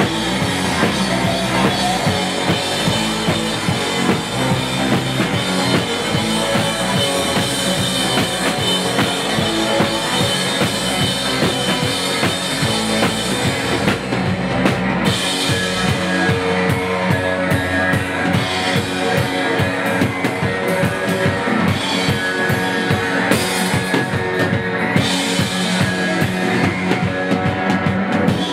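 Live rock band playing an instrumental passage: electric guitar over a full drum kit, with no singing.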